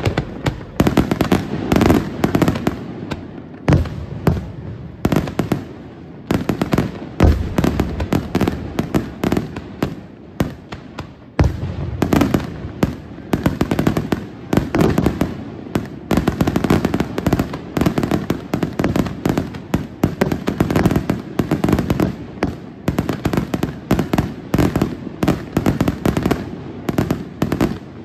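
Aerial firework shells bursting in a dense, near-continuous run of bangs, many in quick succession, with a brief lull about ten seconds in before a heavy bang.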